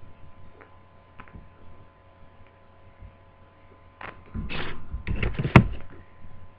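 Laptop screen panel and plastic lid being handled and fitted together: a few faint ticks, then about two seconds of scraping and knocking near the end, topped by one sharp click.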